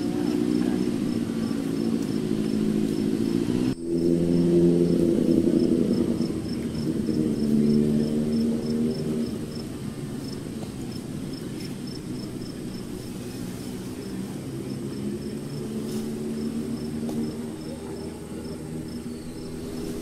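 Crickets chirping in a fast, even rhythm of about five chirps a second, over a louder low droning hum of several steady pitches that is strongest in the first half and then fades. The sound breaks off for an instant about four seconds in.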